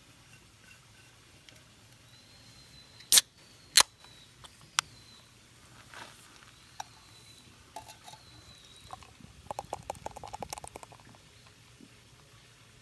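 Several sharp clicks or knocks, two loud ones close together about three seconds in and a lighter one a second later, then a short burst of light rattling clicks. A faint high chirp recurs about every two seconds behind them.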